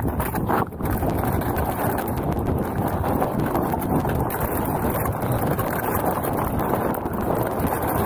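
Wind buffeting the microphone in a steady rumble, with footsteps crunching on snow-dusted lake ice.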